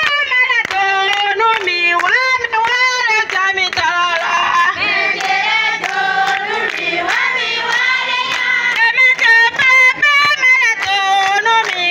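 A group of women singing together, with clapping running through the song.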